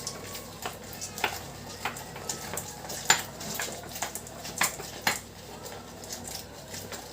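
Half a lemon being squeezed by hand on a kitchen juicer, with sharp clinks and knocks about every half second to a second, the loudest about three seconds in.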